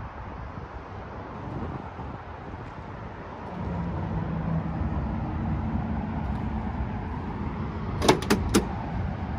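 Wind on the microphone over a low hum, then near the end three sharp metallic clicks close together as the driver's door latch of the 1964 Chevrolet El Camino is worked to open the door.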